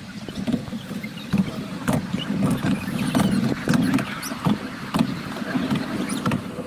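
Narrow-gauge railway carriage rolling slowly along the track: a steady low rumble with repeated knocks and clanks from the wheels and running gear, and a few brief high squeals.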